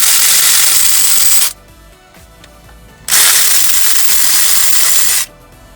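Power wrench run twice in bursts of about two and a half seconds each, loosening a bolt on the engine.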